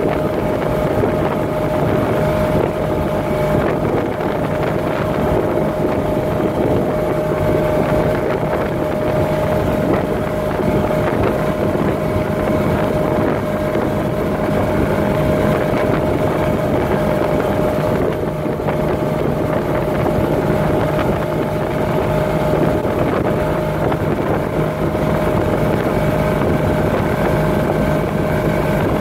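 Piantoni Super Montecarlo runabout under way at speed, its engine running steadily with a constant whine in its note, over the rush of the wake and wind on the microphone.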